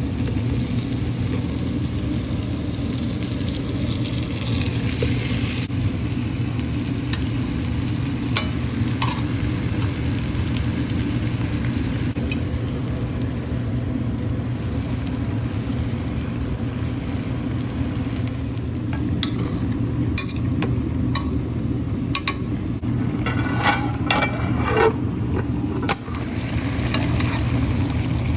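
Chicken frying and sizzling in hot oil for fricassee, steady throughout. A utensil scrapes and clinks against the pot several times in the last third as the pieces are stirred or turned.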